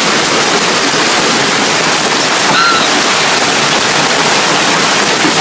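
Hailstorm: hail and heavy rain pounding down in a loud, steady hiss. A brief high chirp cuts through about halfway in.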